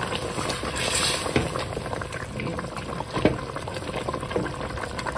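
A lamb curry bubbling at a simmer in a steel pot on medium-high heat while a wooden spoon stirs through the thick gravy, with a few short clicks and plops.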